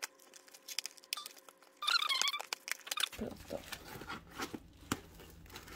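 Scissors snipping through the edge of a cardboard mailing box, a quick run of sharp snaps and clicks, with a brief squeaky whine about two seconds in. The cardboard is then torn and pulled open with rustling.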